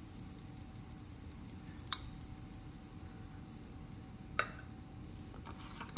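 Batter being poured and spread into a Dash mini waffle maker with a silicone spatula: a steady low hum with two sharp clicks, about two seconds and four and a half seconds in, and a louder knock right at the end.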